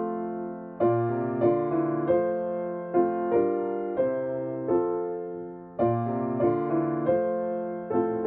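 Solo piano playing a Christmas carol, chords struck and left to ring, with a short break between phrases about six seconds in.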